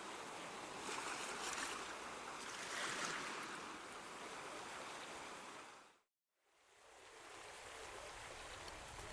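Steady rushing water sound like surf, swelling twice, then fading out to a moment of silence about six seconds in and fading back up.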